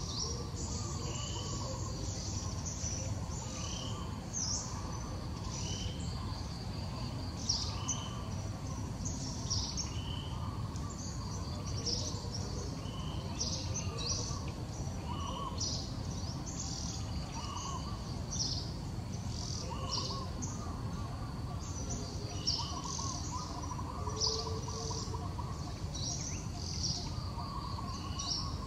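Birds chirping, short high notes repeated every second or two, over a steady low background rumble.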